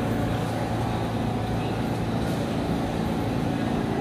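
R160B Siemens subway train pulling into an underground station and slowing to a stop: a steady rumble with a low motor hum.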